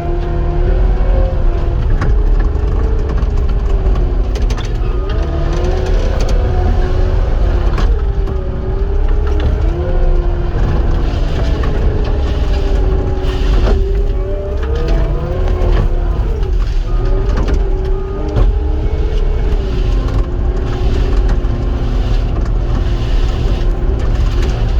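Cat 259 skid steer's diesel engine running under load, its pitch rising and dipping every few seconds as the machine works, over a heavy low rumble with occasional short knocks.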